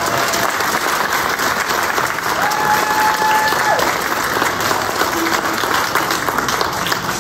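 Audience applauding: many hands clapping steadily, fading out just after the end.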